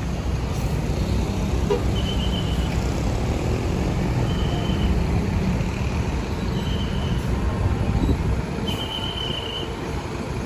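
Steady low rumble of road traffic and bus engines, with four short, high, flat-pitched toots spaced about two seconds apart.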